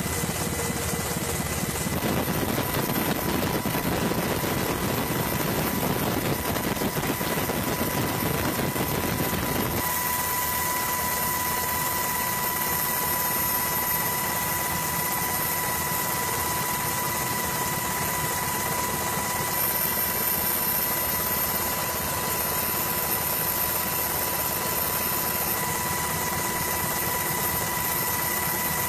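Helicopter running steadily, heard from on board: a constant rush of rotor and engine noise with a steady high whine.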